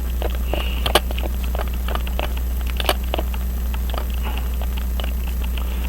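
Small clicks and taps of a watchmaker's screwdriver working the screws of a Hamilton 916 pocket watch movement, two sharper metal clicks about one and three seconds in, over a steady low electrical hum.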